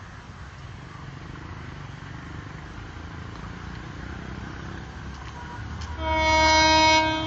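Train horn sounding one loud blast about a second long, a single held chord, near the end.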